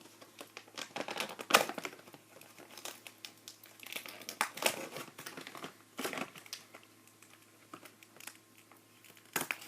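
Plastic toy packaging being handled and pulled apart, crinkling and crackling in irregular bursts, with the loudest crackle near the end.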